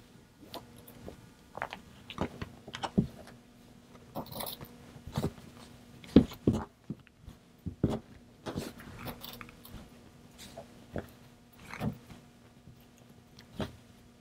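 Heavy upholstery-weight canvas rustling and sliding on a tabletop as it is handled and pinned together around a decorative cord, with scattered small clicks and taps of the pins, over a faint steady hum.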